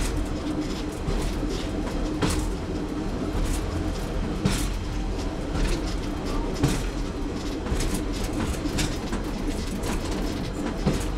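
Class 101 diesel multiple unit under way: a steady drone from its underfloor diesel engines with irregular knocks and clicks as the wheels pass over rail joints, the sharpest about two-thirds of the way through.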